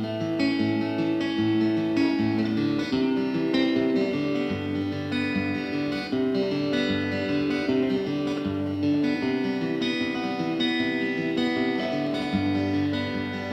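Background music: guitar-led instrumental with plucked and strummed acoustic guitar.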